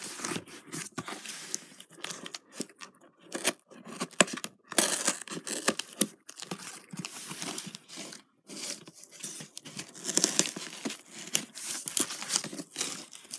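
Cardboard shipping box being torn and pulled open by hand: irregular ripping and rustling of the cardboard flaps, with crinkling of bubble-wrap packing inside.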